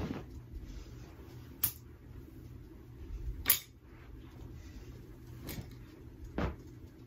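Clothes on hangers dropped onto a heap on carpet, with a few sharp clicks of plastic and wooden hangers knocking together.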